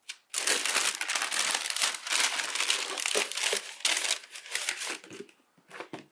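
Shoebox tissue paper rustling and crinkling as hands fold it back and lift a sneaker out: dense crackling for about five seconds, then a couple of short rustles near the end.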